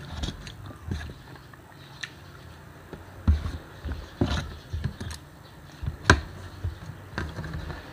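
Metal spoon and fork scraping and tapping against a disposable aluminium foil tray while scooping rice, with scattered sharp clicks, the loudest about six seconds in, and eating between them.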